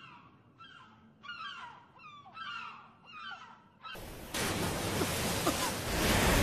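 Seagulls crying, a string of short falling calls about every half second. About four seconds in, a sudden loud rush of splashing water spray takes over as a figure skims across the water surface.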